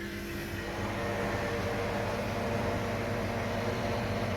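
Freezer condensing unit switched on with a newly replaced condenser fan. The fan spins up over the first second, then runs with a steady whir and hum.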